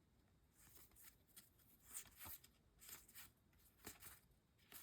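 Faint rustle and slide of trading cards being handled, a string of short soft scrapes as cards are flipped and moved.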